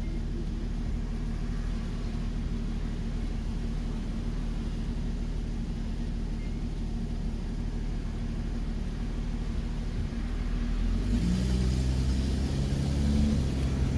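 1967 Ford Mustang's 200 cubic-inch inline-six, running on a freshly rebuilt Holley 1940 one-barrel carburetor, idles steadily as heard from inside the cabin. About eleven seconds in it gets louder and fuller as the engine is revved and the car pulls away.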